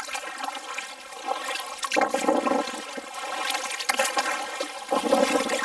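Kayak paddle strokes: water splashing and gurgling as the blade pulls through the water beside the hull, with a louder surge about two seconds in and another near the end.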